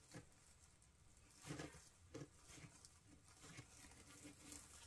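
Near silence with a few faint rustles, the clearest about one and a half and two seconds in, as hands handle the plastic deco mesh and wired ribbon of a wreath.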